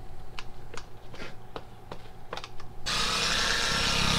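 A few light clicks, then about three seconds in a handheld electric orbital polisher switches on suddenly and runs steadily with a whirring hum, its pad working compound into the paint.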